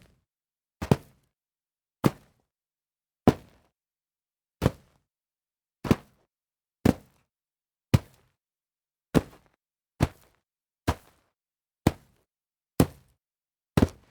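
Foley jumps landing on dirt: about thirteen separate short thuds, roughly one a second, with silence between. A few landings come as two quick hits close together.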